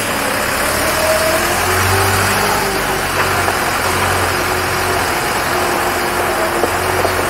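Unimog U 5000's four-cylinder turbodiesel running steadily at low revs as the truck drives slowly over gravel, a deep even hum with a faint tone drifting a little in pitch.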